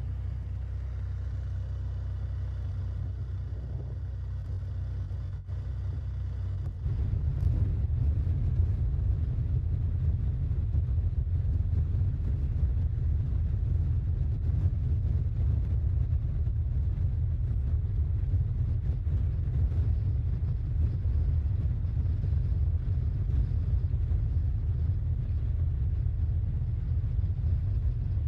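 Steady low rumble of wind buffeting the microphone, mixed with the running noise of the moving camera vehicle pacing the cyclists. It gets louder about seven seconds in and then holds.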